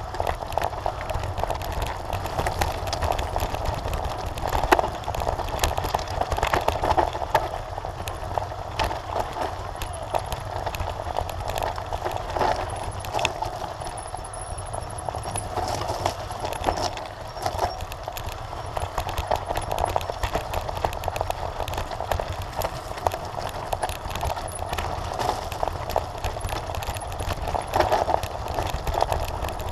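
Mountain bike clattering and rattling down a loose, rocky gravel trail, with tyres crunching over stones and a constant patter of small knocks over a steady low rumble.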